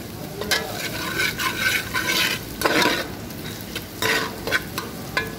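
Onion, garlic and ginger sizzling in butter in a metal pot while a metal spatula stirs them, scraping the pan bottom in repeated, irregular strokes. This is the first sauté (gisa) of the aromatics.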